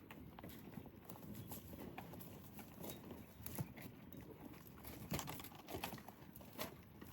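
Goats feeding and moving about: faint, irregular soft clicks and knocks, with a few louder ones about three and a half, five and six and a half seconds in.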